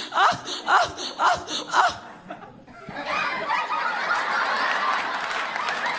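A man's rhythmic moans, about five in the first two seconds, imitating a woman nearing orgasm. After a short pause, audience laughter starts about three seconds in and keeps going.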